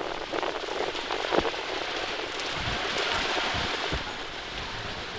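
Heavy rain pouring onto a road, a dense steady patter of drops on wet pavement, with a vehicle going past through the water around three seconds in.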